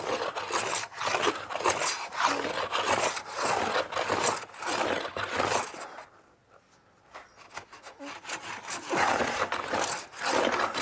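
Hand plane shaving along a board edge in repeated long strokes, with a pause of about a second and a half past the middle. The blade cuts hit and miss, catching on some parts of the stroke and skating over others.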